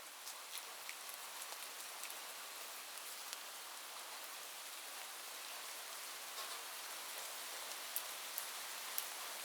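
Light, gentle rain falling steadily, with scattered individual drops ticking sharply on a surface, a few louder ones near the end. The rain swells gradually, still fading in.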